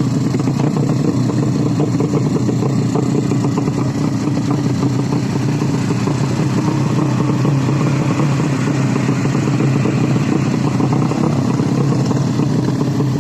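Racing 130 cc underbone (bebek) motorcycle engines running loudly and steadily at high revs, with a fast, continuous firing rattle.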